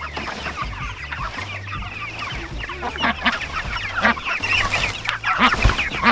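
A flock of young Big Red broiler chickens clucking and peeping busily, many short calls overlapping, with one low thump near the end.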